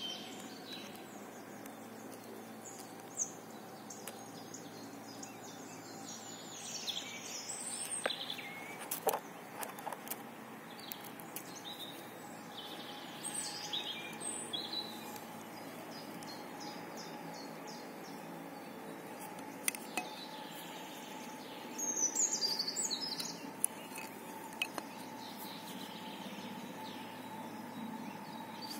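Birds chirping in short clusters now and then over a steady outdoor background hiss, with the busiest chirping about three-quarters of the way through. A few sharp clicks are scattered in between.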